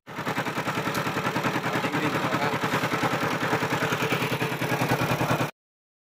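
Engine of a double-drum road roller running with an even, rapid clatter; the sound cuts off abruptly about five and a half seconds in.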